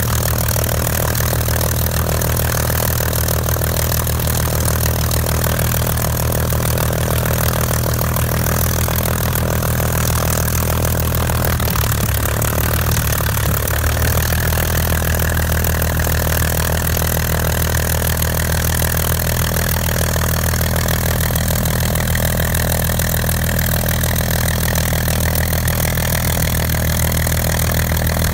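Rolls-Royce Griffon V12 engine of a Spitfire FR XIV running steadily with the aircraft standing still, a deep even drone; the engine note shifts slightly about halfway through.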